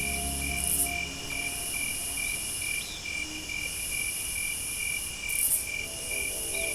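Insects chirping in a forest: an even chirp repeating about two to three times a second, over a higher buzzing that swells and fades in long waves. Soft sustained music tones fade out about a second in and come back near the end.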